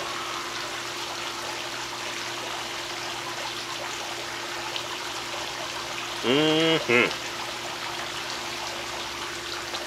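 Steady rushing background noise like running water, with a faint steady hum under it. About six seconds in, a man's voice gives a short hummed 'mm-hmm'.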